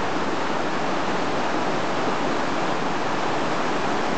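Rushing mountain torrent running high in white-water rapids after a day of rain, a steady, unbroken roar of water.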